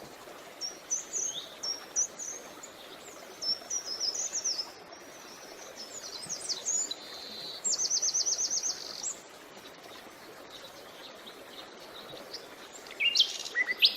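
Small birds chirping in short groups of quick high notes over a steady background hiss, with a rapid trill of even notes in the middle. The birds pause for a few seconds, then break into louder chirping near the end.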